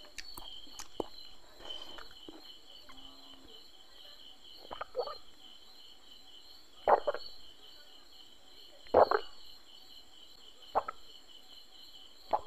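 Crickets chirping steadily in the background as a high, pulsing trill. A few short sharp clicks and knocks stand out over it, the loudest about seven and nine seconds in.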